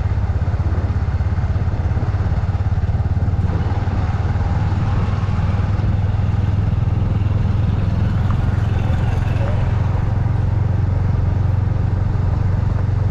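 Bajaj Pulsar NS125's single-cylinder engine running steadily under way, heard from the rider's seat as a constant low hum with fast even firing pulses and road and wind noise over it.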